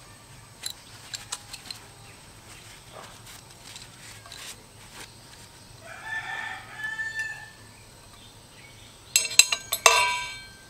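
Chicken calls: a pitched call about six seconds in, then a louder, harsher crowing call near the end that trails off. A few light knocks of tools being handled come in the first two seconds.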